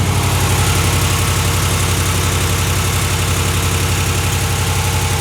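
2019 Ram 1500's 5.7-litre HEMI V8 idling steadily, nice and quiet. Only the normal fuel-injector tick is there and no exhaust-leak ticking, now that new exhaust manifolds are fitted.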